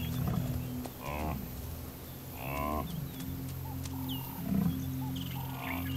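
Cape buffalo calling: two short, moaning bellows, about a second and about two and a half seconds in, over a low steady drone.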